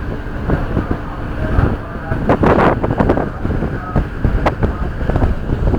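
Wind buffeting the microphone on a moving boat at sea, over a steady low rumble, with louder surges about two and a half and three seconds in.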